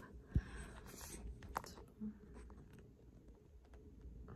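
Faint handling noises in a quiet room: a soft thump about half a second in, then a few light clicks and rustles.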